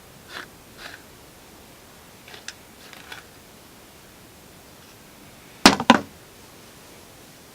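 A few faint, short scratchy strokes of hair being teased with a comb, then two sharp clicks in quick succession near the end.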